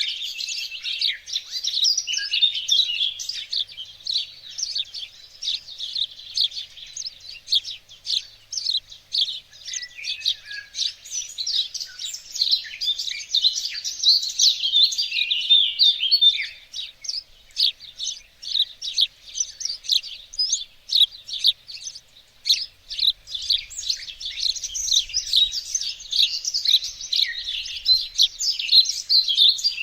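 Garden songbirds chirping and singing, a dense run of quick, high, overlapping notes.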